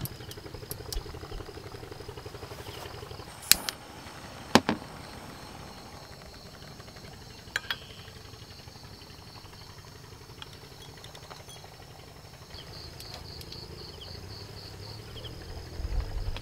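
Steady high insect chirring, with a few sharp knocks and clicks of camping gear being handled. The two loudest knocks come about three and a half and four and a half seconds in.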